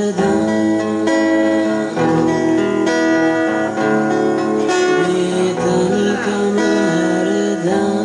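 Two acoustic guitars strummed together, with a man singing the song at a microphone.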